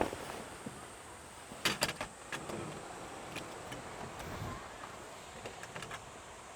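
A few sharp clicks and knocks, a quick cluster of them about two seconds in and fainter ones later, over a faint steady hiss.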